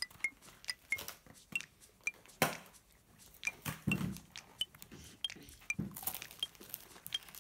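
Small handling clicks and a short high chirp recurring every half second or so, then a crunchy bite into a strawberry-striped cookie stick about six seconds in.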